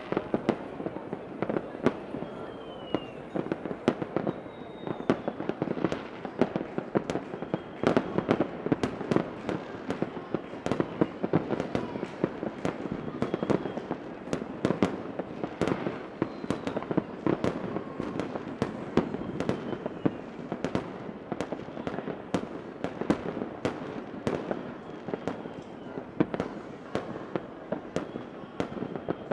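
Fireworks going off in a continuous, dense, irregular barrage of bangs and crackling pops, with a few faint high whistles.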